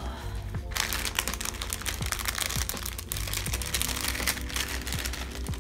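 Small clear plastic bags of enamel pins crinkling as they are handled, a dense crackle full of fine clicks starting about a second in. Background music plays underneath.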